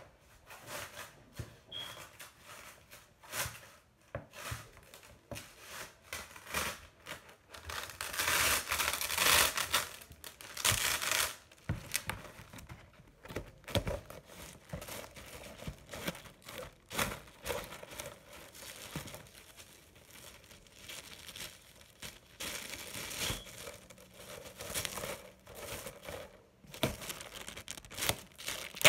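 Glad Press'n Seal plastic wrap being pulled from its box, torn off and crinkled, in irregular rustles and crackles. The loudest stretch lasts a few seconds, about a third of the way through.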